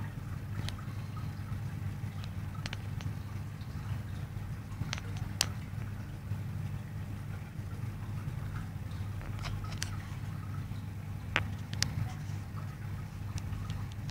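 Steady low electrical hum of running aquarium equipment, with a few sharp clicks scattered through it.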